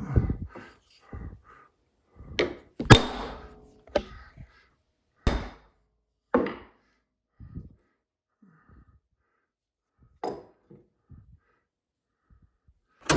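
Irregular knocks and clunks of wooden workpieces and hand tools being handled and set down on a workbench, about ten in all, the loudest about three seconds in.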